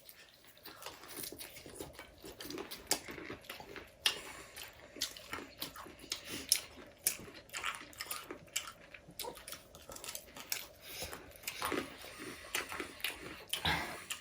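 People eating chowmein noodles: chewing and mouth smacks, with many short irregular clicks and taps, one louder near the end.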